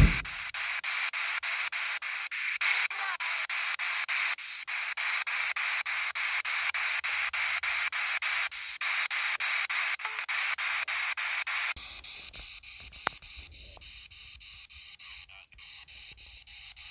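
P-SB7T spirit box sweeping through radio stations: loud static chopped into short pulses several times a second, with a sharp click at the very start. About twelve seconds in it drops to a much quieter hiss.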